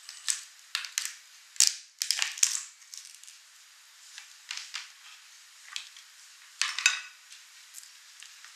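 A cooked crab's shell cracking and crunching as it is pried apart by hand: a run of sharp, irregular cracks and crunches. The loudest come a little under two seconds in, in a cluster just after, and again about seven seconds in.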